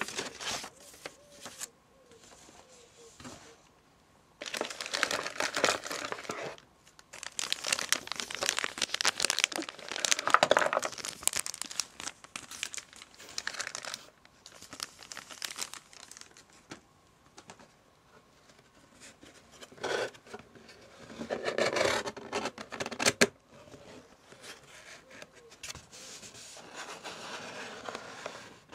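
Packaging being crinkled and rustled by hand, in several bursts of crackling with quieter handling between.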